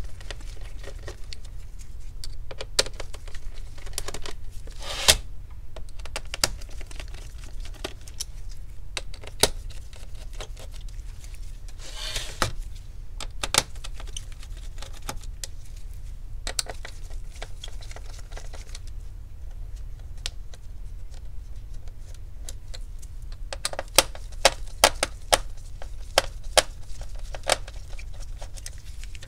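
Small screws being undone with a hand screwdriver from the plastic frame around an LCD panel: scattered sharp clicks and small metal taps, with a quick run of clicks a few seconds before the end.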